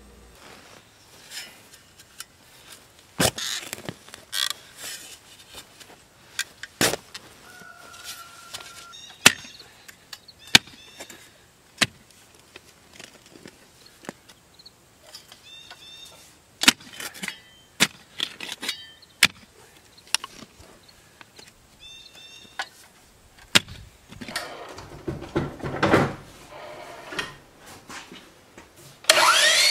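Clamshell post-hole digger jabbing into the ground: a scattering of sharp, irregular thuds and scrapes. Right at the end a power tool motor spins up with a rising pitch.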